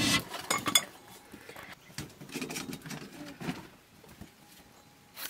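Breath blown hard through a blowpipe into a wood cooking fire, an airy hiss with a faint whistle, stopping just after the start. Then scattered light clicks and knocks.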